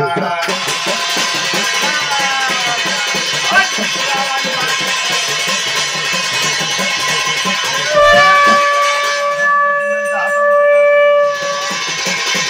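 Jagar ritual music: a hand drum and ringing percussion play continuously. About eight seconds in, a long blown horn-like note slides up and holds for about three seconds before it stops.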